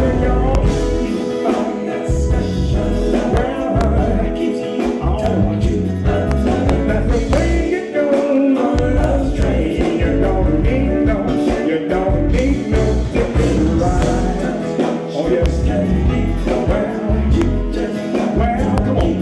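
Live R&B/funk band playing, with a strong bass line, drums and singing.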